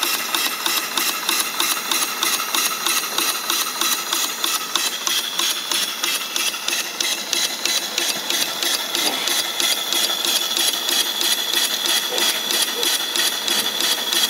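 Homemade steam engine running on live steam: a fast, even beat of exhaust chuffs and mechanical knocking from the engine's moving parts. A steady high-pitched tone joins about five seconds in.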